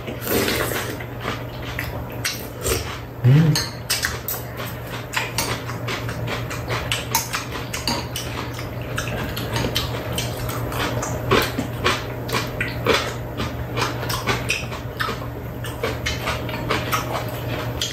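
Close-up eating sounds: metal spoons and chopsticks clicking irregularly against bowls and a tray, with slurping and chewing, over a steady low hum.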